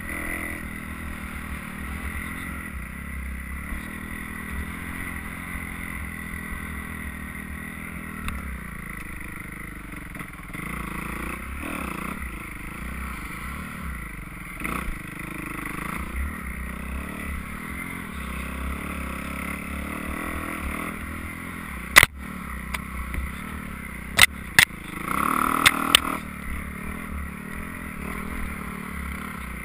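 Dirt bike engine running steadily as it is ridden along a trail, heard from the rider's helmet. Several sharp knocks come about two-thirds of the way through, along with a short louder burst of engine noise.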